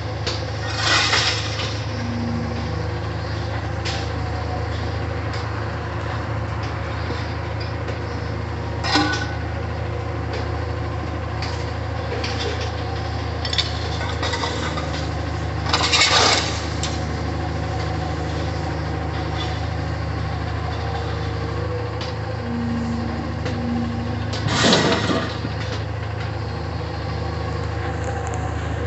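Cat M322 wheeled material handler's diesel engine running steadily, with four loud clattering crashes of scrap metal dropped from its lifting magnet while loading a gondola rail car.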